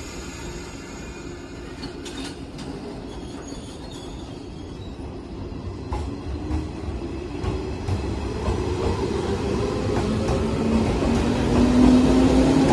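Blue-and-cream 115-series electric train pulling out. Its motors whine and rise in pitch as it gathers speed, over a rumble of wheels on the rails that grows steadily louder.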